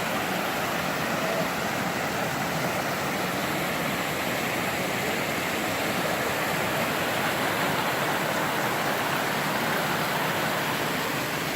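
Steady rush of flowing water from a river or waterfall, an even hiss that holds at one level throughout.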